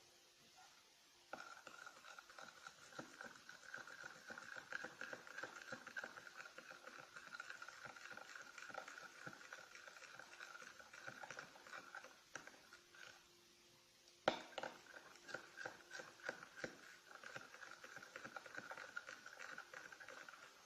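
Glue being stirred with poster colour in a bowl: faint, sticky squishing and rapid small clicks. It goes in two stretches, with a short pause about two-thirds of the way through.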